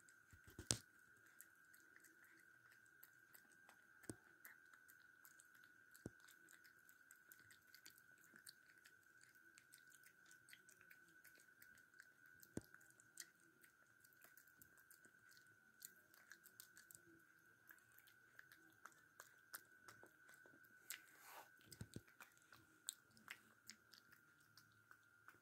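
Faint chewing of a puppy eating soft banana: many small irregular wet clicks and smacks, the sharpest about a second in. A steady faint high whine runs underneath.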